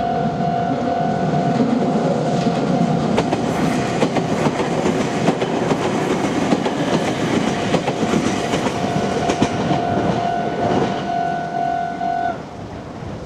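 An electric train on the Meitetsu Bisai Line running over a level crossing, its wheels clicking over the rail joints, while the crossing's warning bell sounds. The bell stops near the end and the train noise fades.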